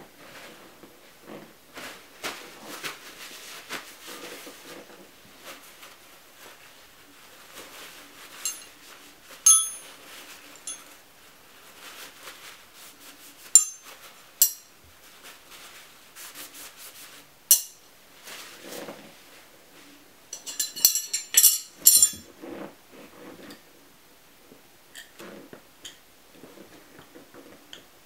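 Steel tyre irons clinking and ringing against each other as they are handled, amid softer rubbing and handling noise. Several single clinks come through the middle, then a quick run of clinks about three quarters of the way through.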